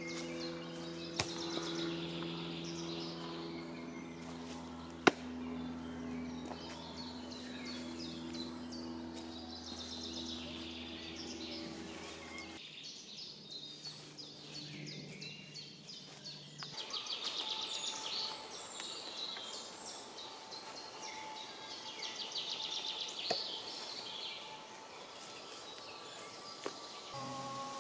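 Songbirds singing in woodland, trilling calls throughout. There are two sharp knocks in the first few seconds, and a steady low hum under the first half cuts off suddenly.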